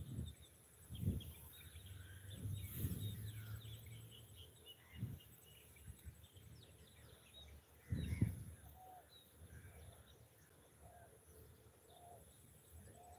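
Birds chirping in the background, with a short low call repeating about once a second in the second half. A few dull low thumps come through, the loudest about 8 seconds in.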